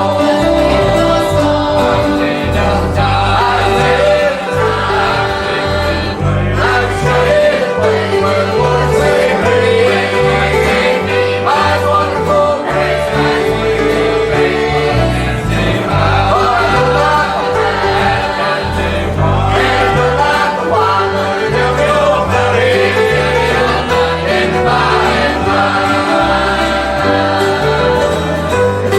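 Gospel music with singing, over a steady bass beat.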